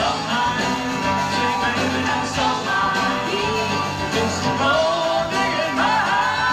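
Live band playing a rock song: a lead singer's voice over guitar, bass and drums, with no break in the music.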